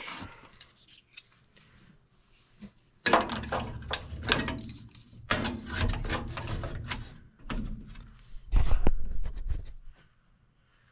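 Handling noise: irregular clatter and knocks in several bursts, starting about three seconds in and loudest near the end.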